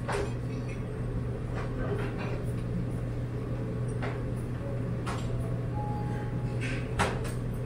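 Frying pan and spatula knocking a few times as an omelette is cooked and folded, the sharp knocks spaced out over a steady low hum.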